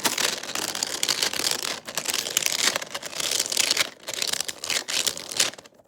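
Crunchy squishy toy being squeezed and kneaded: a dense, continuous crackling crunch that eases briefly twice before fading out near the end.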